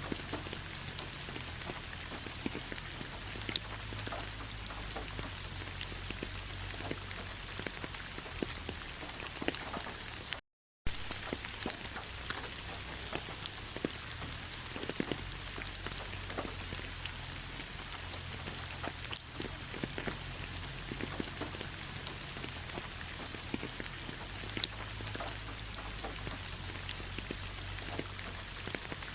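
Rain falling on fallen autumn leaves: a steady patter of many small drop taps. The sound drops out for a split second about ten seconds in.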